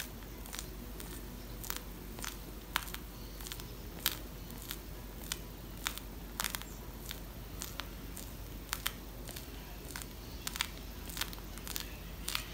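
Piping bag of green whipped cream, fitted with a Wilton 233 grass tip, squeezed and pulled away in short strokes: small irregular clicks and crackles, about one or two a second.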